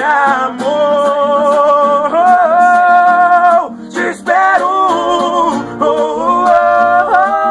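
A man singing a long, drawn-out "amor" in held notes and vocal runs, over acoustic guitar.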